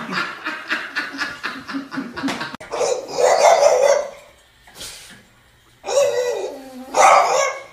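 A person laughing in quick, even bursts for about two and a half seconds, then a dog barking and giving loud cries that fall in pitch, like whining howls.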